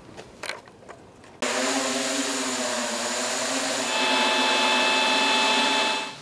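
Small quadcopter drones hovering with a wavering propeller buzz while a cordless electric leaf blower blasts air at them; the rush starts suddenly about a second in, and a steady high fan whine joins it about four seconds in. It cuts off abruptly near the end.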